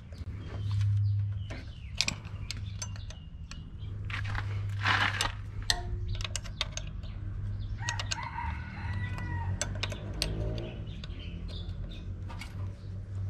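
A rooster crowing once, about two-thirds of the way through, over scattered sharp metal clicks and taps of hand tools working on a tractor's diesel fuel pump. A steady low hum runs underneath.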